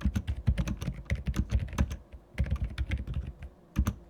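Typing on an Ajazz AK820PRO mechanical keyboard fitted with Akko silent switches: quick runs of keystrokes, a short pause about two seconds in, another run, then a single keystroke near the end.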